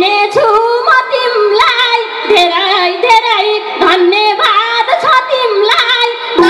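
A woman singing a Nepali dohori folk song live into a microphone, her voice sliding and bending between notes in short phrases.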